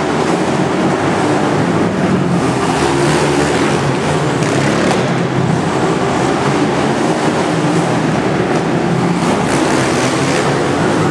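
Several sport quad (ATV) engines racing on an indoor flat track, revving up and down as the quads pass, with the sound filling a large hall.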